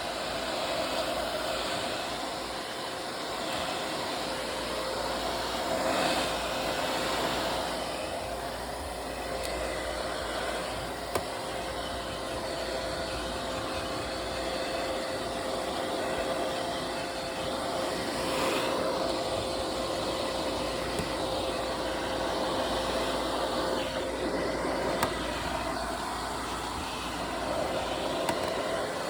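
Hair dryer blowing steadily: an even rush of air with a constant motor hum, its loudness rising and falling a little.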